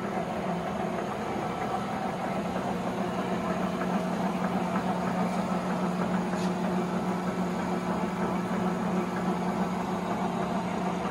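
Hysan Myler 20" x 80" engine lathe running at low spindle speed, a steady mechanical hum with a constant low drone.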